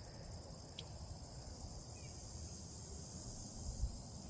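Steady, high-pitched insect chorus, a rapid fine trill in the manner of crickets, with a low rumble beneath.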